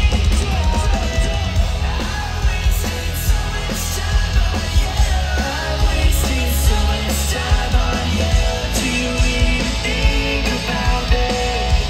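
Live pop-punk rock band playing loudly: electric guitars, bass and drums, with a male singer's voice over them.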